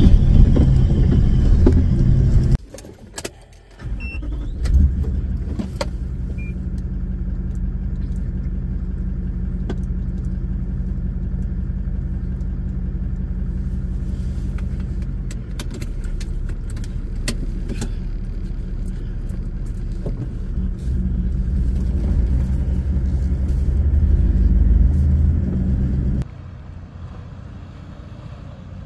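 A Toyota LandCruiser 76 Series driving slowly over a rough dirt track, heard from inside the cab: a steady low engine drone with scattered knocks and rattles from the body and loose gear. Near the end it gives way suddenly to a fainter engine sound.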